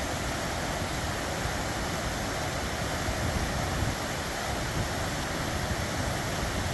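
Fast-flowing snowmelt river rushing steadily, a constant even wash of water noise.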